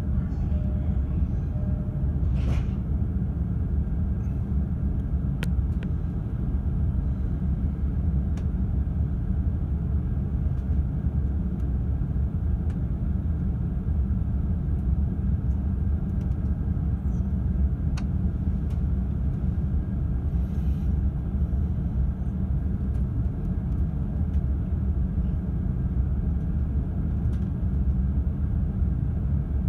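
Steady low rumble inside the upper deck of a bilevel E531-series Green car, with a few brief clicks.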